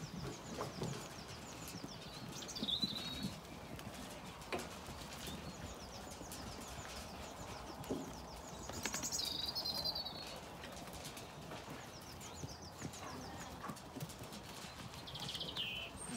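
A flock of Zwartbles ewes and lambs milling and feeding at close quarters: scattered hoof taps and shuffling on the ground. A small bird chirps three times, the loudest calls about a third of the way in and near the end.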